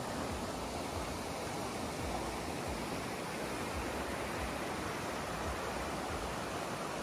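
Steady rush of a shallow creek running over stones.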